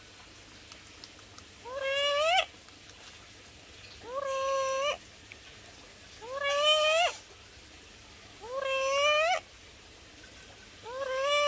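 Black-capped lory calling five times, about one call every two seconds. Each call is a drawn-out, pitched note, under a second long, that holds steady and then rises sharply at the end.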